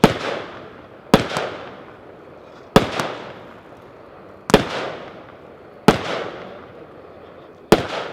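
Shockwave 'Full Charge' 63-shot consumer firework cake firing aerial shells. Six sharp bursts about every one and a half seconds, each trailing off over about a second.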